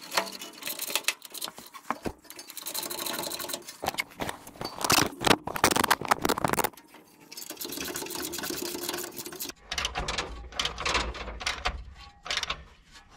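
Socket ratchet wrench clicking in quick runs, tightening bolts on a steel bracket on a truck frame, with scattered metal clinks.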